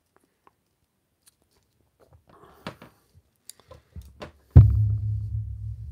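Small plastic clicks and scrapes as an action figure is handled, then a sudden loud thump on the work surface about four and a half seconds in as it is set down on the tray, followed by a low hum that slowly fades.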